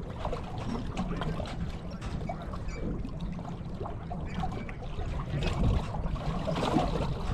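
Water lapping and splashing against a boat hull, with wind.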